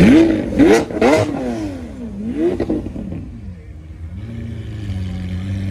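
Lamborghini Aventador's V12 revved in a quick series of blips that rise and fall sharply in pitch, then dropping back to a steady idle about four seconds in.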